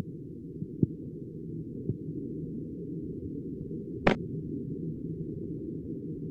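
A steady, muffled low hum, with faint ticks about one and two seconds in and a sharper click about four seconds in, where an on-screen button in a children's app is tapped and the screen changes.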